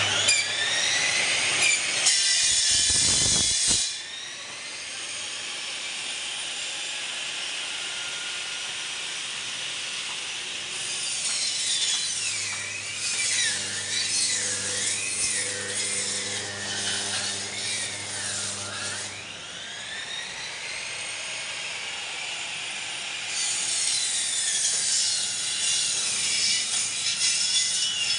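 Electric vertical band saw cutting through meat and bone, a harsh, high sawing noise. It is loudest for the first few seconds and again near the end, with the blade's whine wavering in pitch as the load changes in between.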